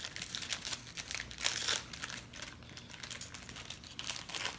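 Reese's peanut butter cup wrapper crinkling and crackling as it is opened by hand, in quick irregular crackles with a louder stretch about a second and a half in.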